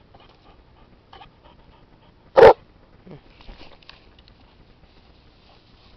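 A boxer dog gives a single short, loud bark about two and a half seconds in.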